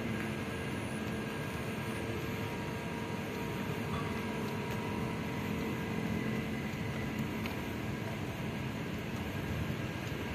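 Steady outdoor city background hum: an even low rumble with a few faint steady tones and no distinct events.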